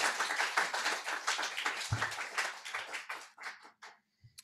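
Audience applauding, the clapping thinning out and stopping about three and a half seconds in, with a small knock near the end.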